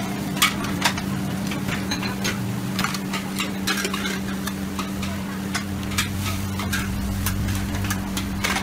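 Noodles being stir-fried in a large wok: a metal ladle and spatula scrape and clank against the wok many times over steady sizzling. A steady low hum runs underneath.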